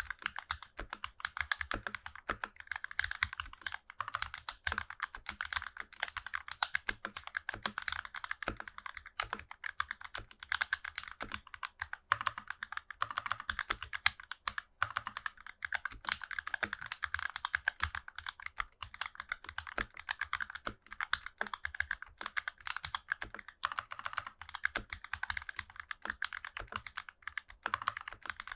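Continuous fast typing on an NK65 mechanical keyboard fitted with Matrix Lab JWK FFF switches and GMK keycaps: a dense, uneven stream of key clacks.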